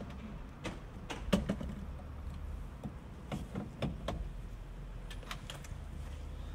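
Charging-cable connector being fitted into the front charging socket of a Renault Zoe electric car: a series of sharp plastic clicks and knocks, most of them in the first four seconds, over a steady low rumble.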